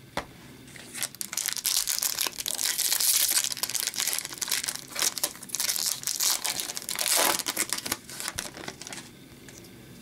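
A foil wrapper of a 2015-16 Upper Deck Series 2 hockey card pack crinkling and crackling as it is handled and torn open. It starts about a second in and stops about a second before the end.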